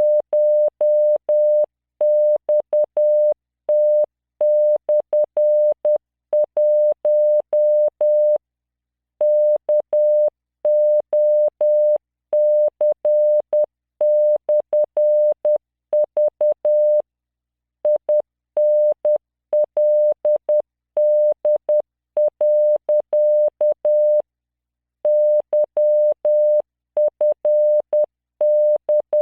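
Computer-generated Morse code at 10 words per minute: a single 600 Hz tone keyed into dots and dashes, sending random five-character practice groups, with a slightly longer pause between groups. Each tone starts and stops with a faint click.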